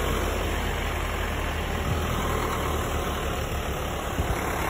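Tractor engine running steadily at a low rumble, taking on a pulsing beat about three seconds in.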